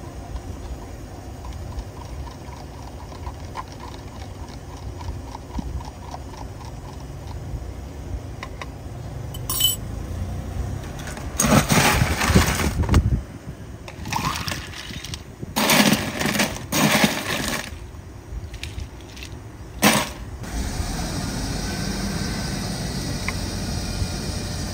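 A metal spoon stirring Thai tea in a plastic cup, a run of quick, even ticks. Then several loud rattling bursts as the tea is poured over ice in a plastic cup, and a sharp snap as the dome lid is pressed on.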